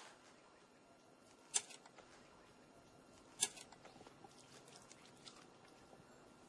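Quiet background with two short, sharp clicks about two seconds apart and a few fainter ticks between them.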